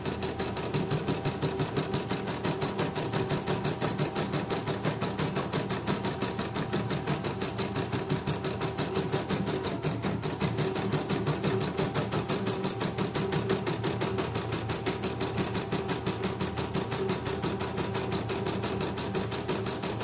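CNY E900 embroidery machine, covers off, stitching a test design: the needle mechanism runs at a rapid, even rhythm. Its freshly oiled mechanism is stitching smoothly, without skipped stitches.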